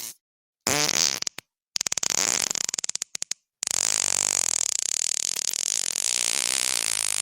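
A string of fart sounds. A short one comes about a second in. A sputtering one breaking into rapid pops follows around two to three seconds. A long, drawn-out one starts at about three and a half seconds and is still going at the end.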